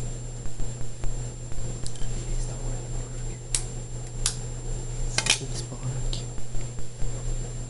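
A few sharp metallic clicks and taps in the middle, from the metal contacts and pencil-lead electrodes of a homemade carbon arc being handled, over a steady low hum.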